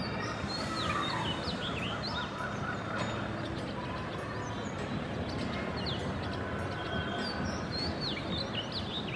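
Small birds chirping: bunches of quick, high chirps, thickest in the first two seconds and again from about six seconds in, over a steady background noise.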